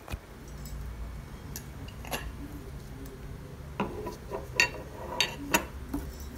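Metal running medals being handled: scattered sharp clinks and taps, a few faint ones at first and a cluster of louder clinks from about four to five and a half seconds in, over a low steady hum.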